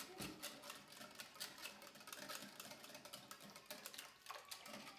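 Wire whisk beating a thin liquid mix of eggs, milk and oil in a glass bowl, its tines clicking quickly and irregularly against the glass; faint.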